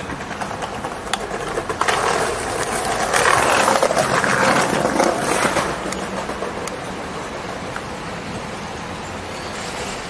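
Street noise heard from a moving e-bike: passing city traffic with a rushing noise that grows louder from about two to six seconds in, then settles to a steady hum.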